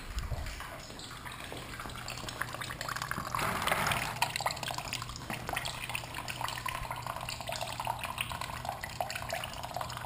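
Engine coolant trickling from the drain bolt hole of a Honda NT700V into a drain pan already holding coolant: a steady splashing patter of liquid into liquid, as the cooling system drains slowly toward empty.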